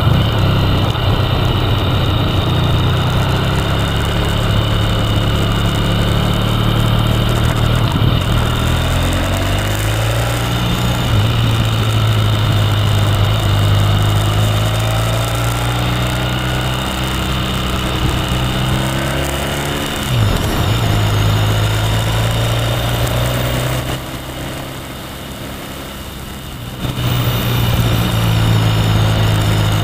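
Motorcycle engine running under way, heard from a camera mounted on the bike. The engine note rises and falls with the throttle, drops away for a few seconds near the end, then picks up again.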